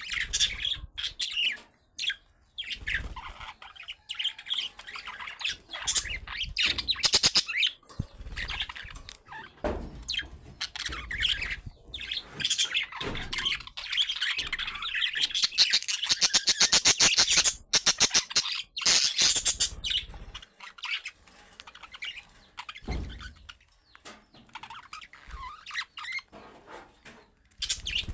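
Budgerigars chattering and warbling, with chirps and squawks that keep stopping and starting, and a fast rattling trill in the middle.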